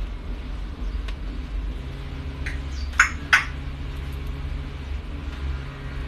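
White cockatoo eating a strawberry held in its foot: a few soft beak clicks and two short sharp sounds about three seconds in, over a steady low hum.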